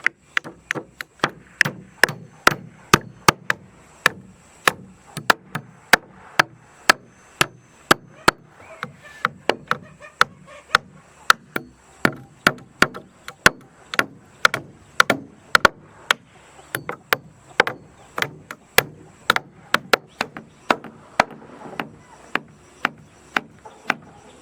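A hammer striking wood in a steady rhythm of about two to three blows a second, as when nailing wooden floor planks.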